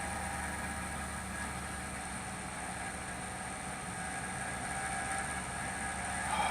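Desktop PC running with a steady low hum and a faint high whine. It is an odd noise from inside the case that the owner has ruled out as the fans; he suspects the graphics card, the power supply or the cooling radiator.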